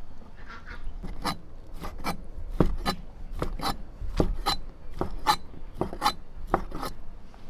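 A cleaver chopping pork on a chopping board: a run of sharp knocks, roughly two a second, starting about a second in.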